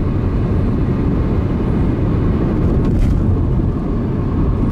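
Steady road and engine rumble inside a car moving at speed.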